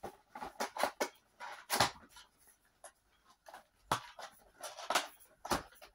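Cardboard box being handled and opened: an irregular run of short scrapes, rustles and knocks.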